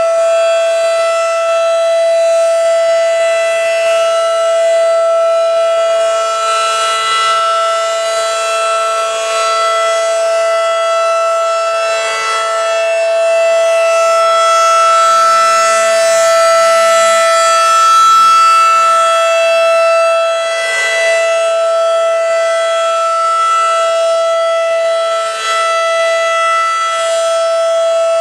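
Federal Signal outdoor civil-defense siren sounding the steady alert signal: one unchanging pitch with many overtones. It swells and fades slightly every few seconds.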